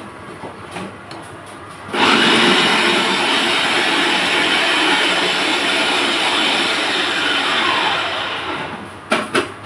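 Masala vadai deep-frying in hot oil in an iron kadai: the oil sizzles loudly from about two seconds in, holds steady, then eases off near the end. A few sharp clinks follow, as of the steel slotted spoon against the pan.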